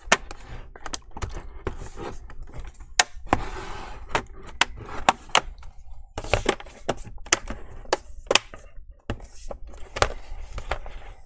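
Plastic snap clips of a laptop's bottom cover clicking into place as the cover is pressed down along its edges, with knocks from the laptop being handled: a string of sharp, separate clicks a few a second.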